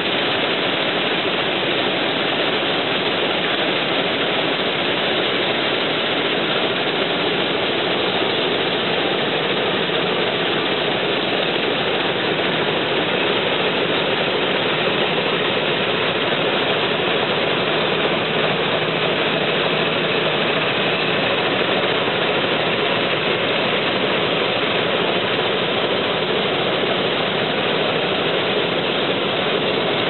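Combine harvester running steadily under load while cutting lodged rice, its engine and threshing machinery making a dense, even noise.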